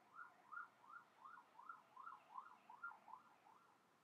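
A faint siren sweeping quickly up and down, about three sweeps a second, fading out about three and a half seconds in.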